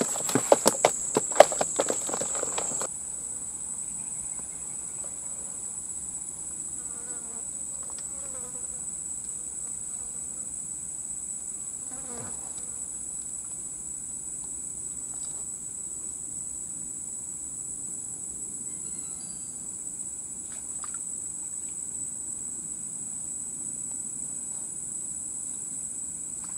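Steady high-pitched insect drone from a chorus of insects. For the first three seconds it is overlaid by louder rustling and sharp clicks.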